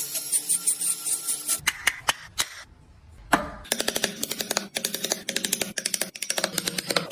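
Hand tools working wood: rhythmic rasping strokes, then a short lull, a single sharp knock, and a fast run of clicking, tapping strokes.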